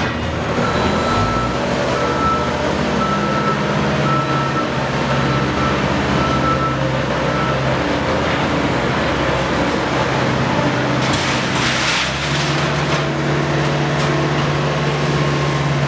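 Skid-steer loader diesel engine running steadily while it carries and lifts a loaded demolition cart. A backup alarm beeps repeatedly in the first half, and there is a burst of clattering about eleven seconds in.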